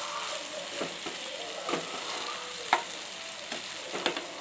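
Sliced okra sizzling in hot oil in a metal pan while a slotted metal spoon stirs it, knocking and scraping against the pan about five times.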